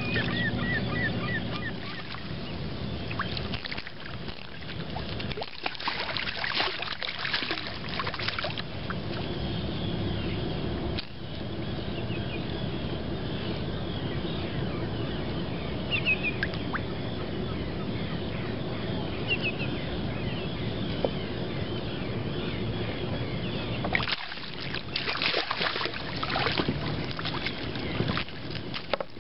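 Water splashing as a hooked striped bass thrashes at the surface, in two bursts a few seconds in and near the end, with short bird calls now and then.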